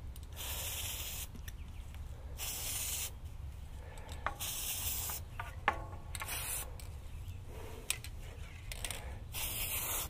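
Aerosol can of CRC brake de-squeak treatment hissing in five short bursts as it is sprayed onto a bicycle disc brake rotor, coating the rotor against brake squeal. A few sharp clicks fall between the bursts.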